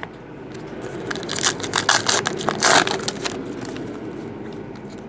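Crinkling and scraping of a trading card pack wrapper and cards being handled, loudest for about two seconds starting a second in, after a single click at the start.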